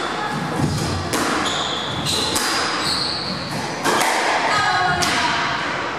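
Squash rally: the ball cracks off rackets and walls about once a second, each hit echoing in the court, with shoes squeaking on the wooden floor between hits.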